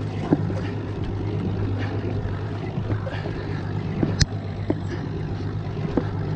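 A boat's engine running steadily with wind and sea noise, and a few sharp clicks and knocks, the loudest about four seconds in.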